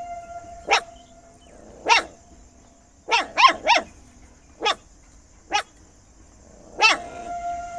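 A dog barking loudly in short, sharp barks, mostly single and about a second apart, with a quick run of three about three seconds in.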